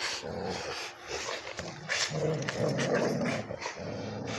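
Several dogs tussling over a chew toy, panting, with short low vocal sounds from the dogs and irregular scuffling noises.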